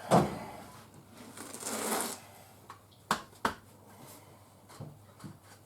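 Rustling and handling noises with a few sharp knocks and clicks: one knock at the start, a rustle about two seconds in, two quick clicks around three seconds, and softer knocks near the end.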